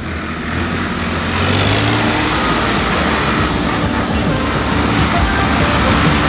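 Diesel tractor engine running steadily as the tractor is driven, getting louder after about a second and a half.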